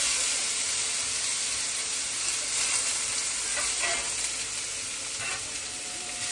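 Breakfast frying in a pan, a steady sizzle.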